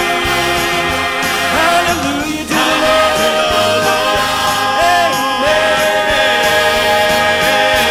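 Gospel choir holding long sustained notes over instrumental accompaniment, with a brief drop about two and a half seconds in before a fuller held chord.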